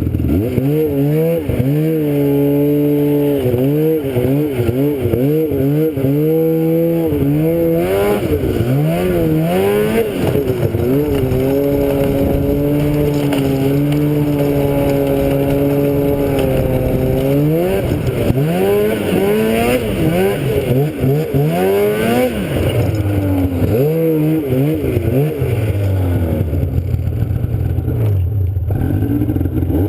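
Small vehicle engine running under way, its pitch rising and falling again and again with the throttle, holding steady for a few seconds in the middle and dropping to a low idle near the end.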